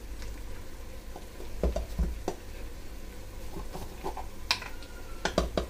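A few light clicks and knocks as a spoon and plastic spice jars are handled on a kitchen counter, scattered through the middle and end, over a faint low hum.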